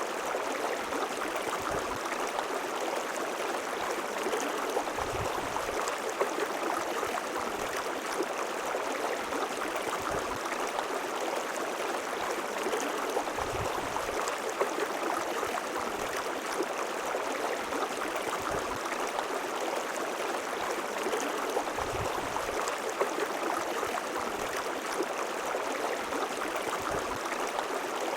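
River water flowing in a steady, even rush, with now and then a brief low thump.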